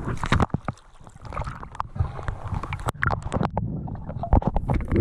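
River water splashing and sloshing around a camera at the surface as a goldendoodle puppy paddles close by, in irregular splashes. About three and a half seconds in, the sound goes dull and muffled for about a second as the camera dips under the water.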